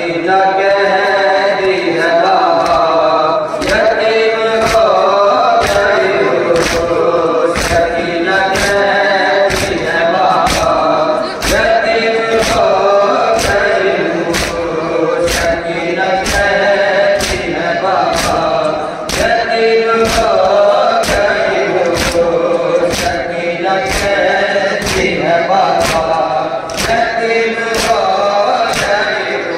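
A group of men chanting a nauha, a mourning lament, in unison, with matam: hands beating on chests together in a steady rhythm of about one beat a second.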